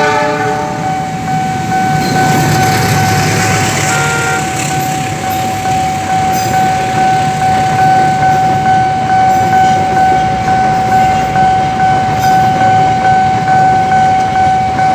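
Railroad crossing warning alarm holding a steady high tone while a train rumbles past. In the second half the loudness pulses in a regular beat.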